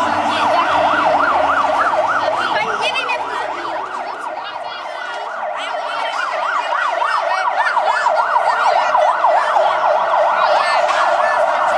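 Emergency vehicle siren in a fast yelp, its pitch swinging up and down about three times a second. It dips a little about four seconds in, then comes back strong.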